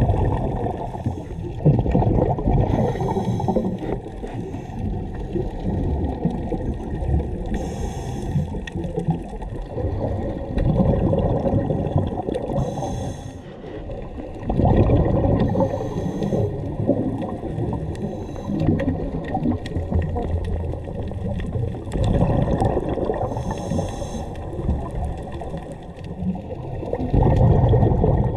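Scuba diver breathing through a regulator, heard underwater: a short hiss with each inhalation every few seconds, then a long low bubbling rumble as the exhaled air leaves the regulator.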